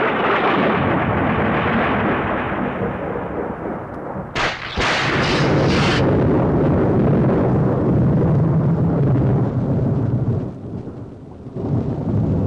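Film sound effect of a long, loud thunder rumble, with a sharp crackling thunderclap about four and a half seconds in that lasts about a second and a half. The rumble dies down after about ten seconds.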